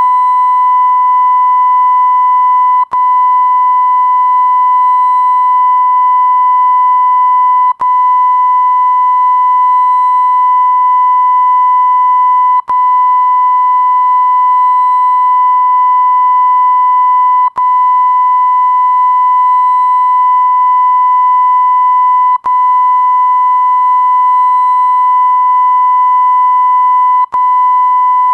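Continuous electronic beep sound effect: a single steady, high-pitched tone of the censor-bleep kind, broken by a very short gap about every five seconds.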